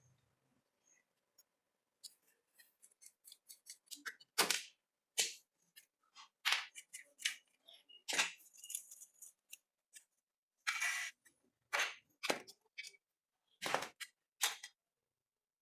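Hand tools working on a rusted metal toy car: an irregular run of sharp clicks and short scrapes, some loud, with a longer scrape about two thirds of the way through.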